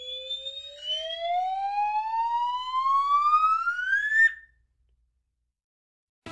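Cartoon intro sound effect: a single whistle-like tone gliding steadily upward in pitch for about four seconds, then cutting off sharply.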